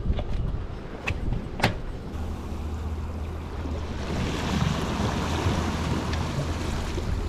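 Sailboat under way: a steady rush of water and wind, swelling about halfway through, with a few sharp clicks or knocks in the first two seconds.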